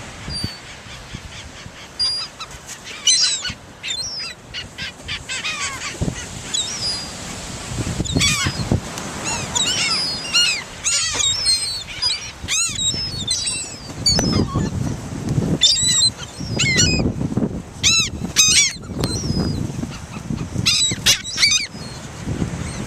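A flock of seagulls calling, many short harsh squawks overlapping, growing busier from about eight seconds in.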